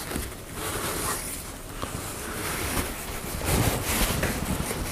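Irregular rubbing and scraping as grime is cleaned off parts of a car's LPG gas reducer, with a few low knocks of the parts being handled near the end.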